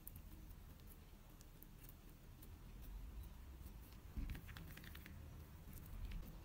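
Soft handling sounds of hands pressing and tucking braided bread dough on a silicone baking mat, with faint small taps and a dull thump about four seconds in.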